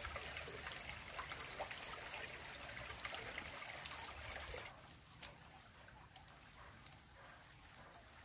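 Faint trickling of a small, slow-flowing river stream, with a few light clicks. The sound drops abruptly quieter a little under five seconds in.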